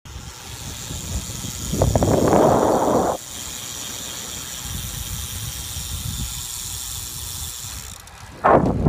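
Wind rumbling on the phone's microphone while riding a bicycle along a road, with a steady hiss of the tyres rolling on the pavement. A louder gust of wind noise comes about two seconds in and stops abruptly a second later, and another starts near the end.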